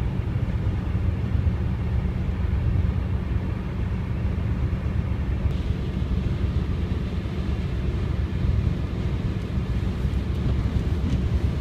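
Steady road and engine rumble of a car driving at highway speed, heard from inside the cabin.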